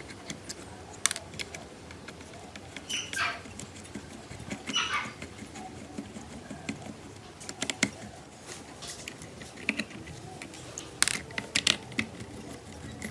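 A screwdriver working screws in and out of a plastic toy RC car chassis: scattered small clicks, taps and scrapes of metal on plastic, with a quick cluster of sharper taps near the end.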